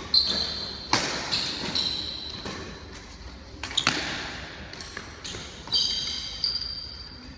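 Badminton rally: rackets striking the shuttlecock every one to two seconds, each hit echoing through a large hall, with high sneaker squeaks on the hard floor between hits.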